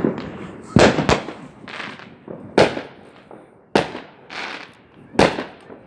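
Fireworks exploding: a string of sharp bangs at irregular intervals, about five loud ones with fainter ones between, each trailing off in a rolling echo.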